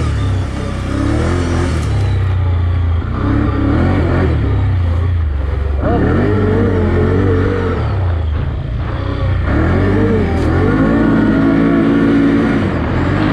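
Can-Am Outlander ATV engine under hard throttle, its pitch rising and easing off several times as the quad accelerates, with a steady low rumble underneath.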